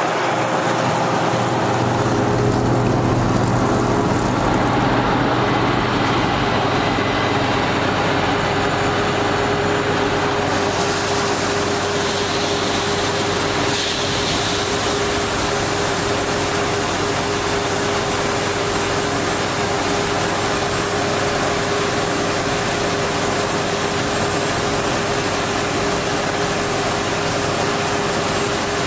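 Claas Lexion 750 combine harvester running alongside a grain trailer: a steady machine drone with a held hum. About ten seconds in a hiss joins it as the unloading auger starts pouring grain into the trailer, and the pour continues steadily.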